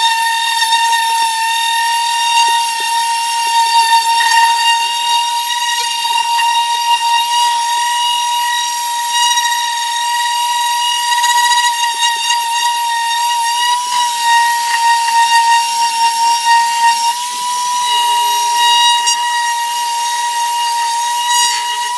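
Corded random orbital sander running steadily as it sands a glued-up wooden vanity top, a loud constant high whine from the motor and spinning pad.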